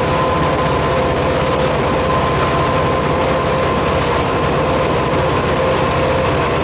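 Cab noise of an EMD WDP4B (GT46PACe) diesel-electric locomotive running at speed. Its 16-cylinder 710 diesel engine and the wheels on the rails make a loud, unbroken rumble, with a steady whine held over it.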